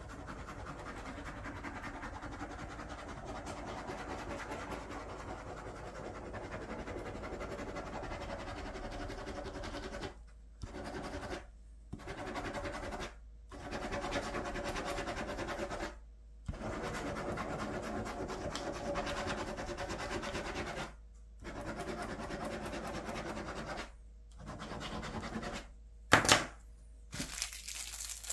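Plastic ballpoint pen scribbling loops on paper over a clipboard, a steady scratching broken by several short pauses as the pen lifts. Near the end a sharp click, then the crinkle of a plastic pen sleeve being torn open.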